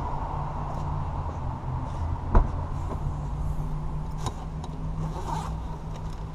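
Handling noises: one sharp knock about two and a half seconds in and a few lighter clicks over a steady low hum.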